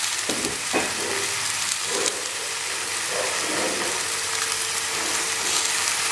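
Raw chicken legs and onions sizzling steadily in fat in a hot steel pan, frying.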